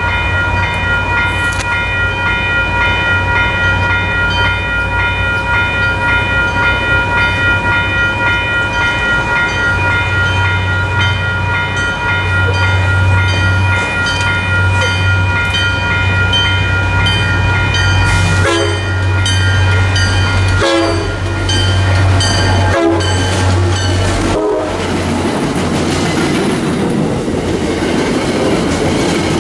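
A ringing warning signal, pulsing about twice a second, as an MBTA commuter train's diesel locomotive approaches and runs past with a steady low engine drone. From about 18 s in, the warning stops and the passing coaches' wheels clack rhythmically over the rail joints.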